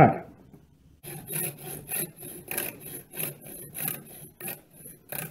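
Hacksaw cutting a groove into the hub of a nylon propeller held against a vise. Short back-and-forth rasping strokes, about two to three a second, start about a second in.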